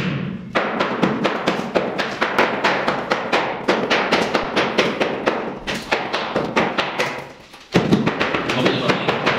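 A hand hammer striking a steel chisel, chipping plaster and concrete off a reinforced-concrete column to expose the rebar: a quick run of sharp metal-on-masonry blows, several a second, with a brief pause a little after seven seconds.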